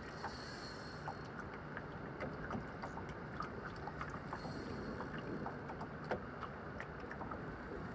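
Water lapping around a small open boat on the water, with a steady hiss of wind and scattered light clicks. A short high hiss comes twice, just after the start and again about halfway through.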